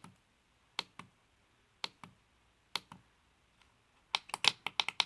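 Keypad buttons on an RF Explorer handheld spectrum analyser clicking as its frequency keys are pressed to step through the spectrum. Single presses come about a second apart, then a quick run of about ten presses near the end.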